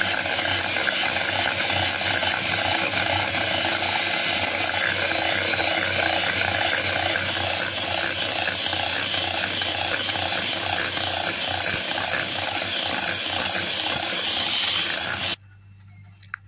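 Electric hand mixer running steadily with its twin wire beaters whisking muffin batter in a glass bowl, with a regular pulse about twice a second. It is switched off and cuts out suddenly about a second before the end.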